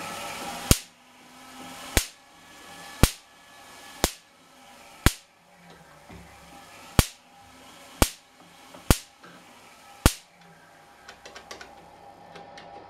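Hand-cranked Wimshurst electrostatic machine whirring, with a sharp spark crack jumping between its discharge balls roughly once a second, nine in all. After about ten seconds the cracks stop and only light ticking is left over the whirr.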